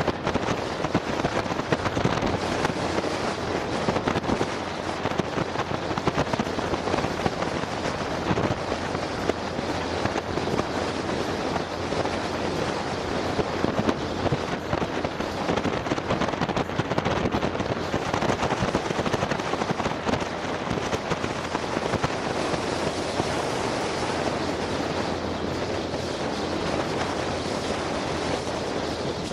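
Wind buffeting the camera microphone on an open Polaris Slingshot three-wheeler while it drives, a steady rough rush of noise with road and engine sound beneath it.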